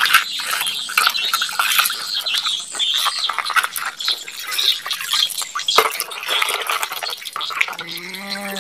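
A plastic toy truck being dunked and swished in a bucket of soapy water: irregular splashing and sloshing with many small clicks and knocks.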